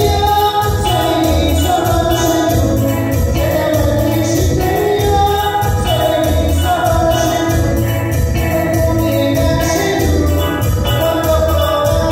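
Live music from a digital keyboard with a programmed rhythm accompaniment at a steady beat, and a man singing into a microphone, played through a PA system.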